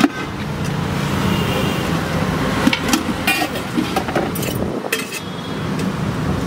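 Steady roadside traffic noise, with several sharp clinks of stainless-steel pots, lids and a ladle being handled.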